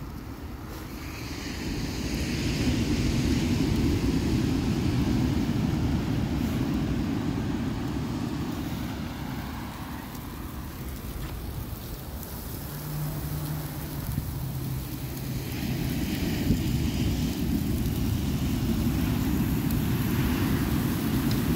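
Ocean surf on a sandy beach, a low rumbling wash that swells and eases twice. A short, steady low hum joins it about thirteen seconds in.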